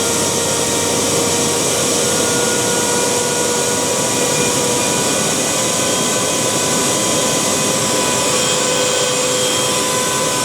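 A 30 hp Alup SCD 30 variable-speed rotary screw air compressor running loaded and making air. It gives a loud, steady whooshing noise with a few steady whining tones over it.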